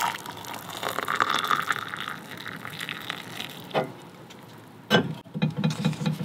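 Water poured from a small pot into a ceramic mug, a steady splashing pour for about three and a half seconds. Then a knock and a sharp clack as the pot is set down, followed by a low, rapid rattling buzz near the end.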